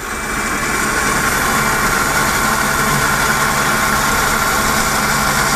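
Electric winch motor of a CF Moto UForce 1000 reeling in its rope, held taut by hand so it winds neatly onto the drum. A steady motor-and-gear whine that starts suddenly and cuts off shortly before the end.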